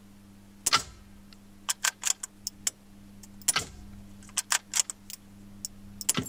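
Pallas BA-15 .22LR semi-automatic rifle with an Atec Wave moderator firing suppressed shots: a string of sharp, fairly quiet cracks and clicks, the loudest about a second in, midway and near the end.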